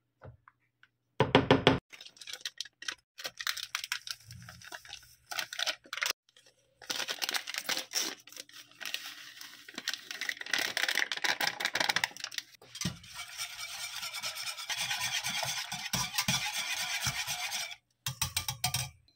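A plastic sachet of gulaman (agar powder) crinkling as it is torn open, then a wire whisk stirring liquid in a pot, scraping steadily for about five seconds.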